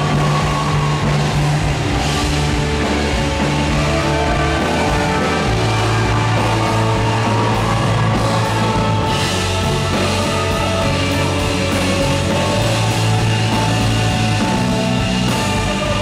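Live rock band playing loud: distorted electric guitars over a held bass line and drum kit, the bass note shifting lower about five and a half seconds in.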